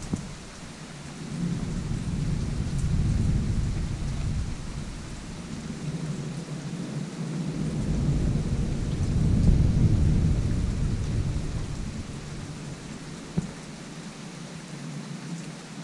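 Thunder rolling in two long rumbles: one swelling about a second and a half in, and a louder one building near the middle before dying away. Steady rain falls throughout.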